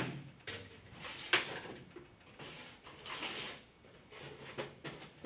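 Irregular scraping and knocking of hand tools being handled and rummaged for, about one noise a second, with one longer scrape in the middle.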